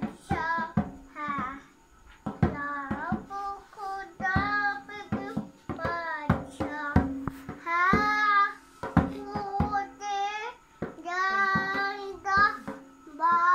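A young child singing a worship song in a high voice, phrase after phrase, while slapping a djembe with bare hands in irregular strokes.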